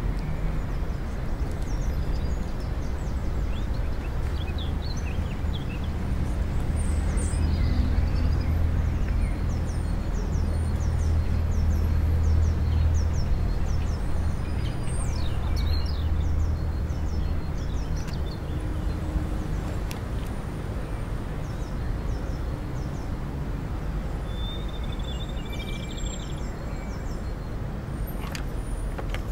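Outdoor park ambience: a steady low rumble, louder for a few seconds in the middle, with small birds chirping in quick series and calling now and then above it.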